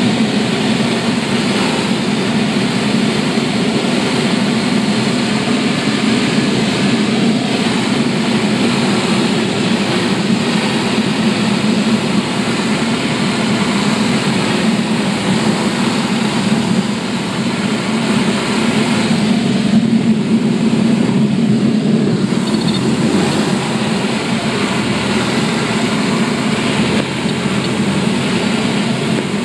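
Cabin noise of a single-engine Piper Warrior on approach and landing: the engine and propeller drone steadily, mixed with rushing air.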